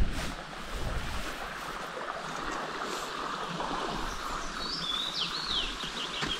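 Steady rushing outdoor noise from the river and trees. A small bird calls over it: a few quick sweeping notes about four and a half seconds in, then a rapid trill near the end.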